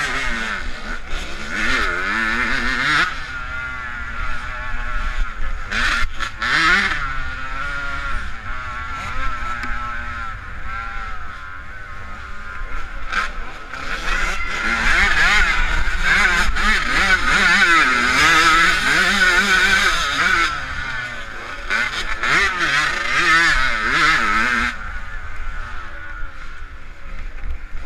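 Dirt bike engine heard up close from the rider, revving up and down over and over through ruts and corners, pushed hardest for several seconds past the middle. A low wind rumble runs under it, with a few brief knocks.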